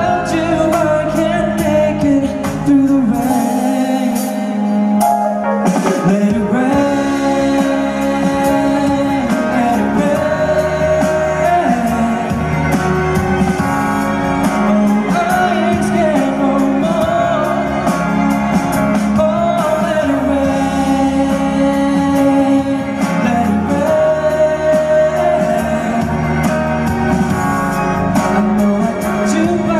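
A pop song performed live, with singing over a backing track, heard in a large hall.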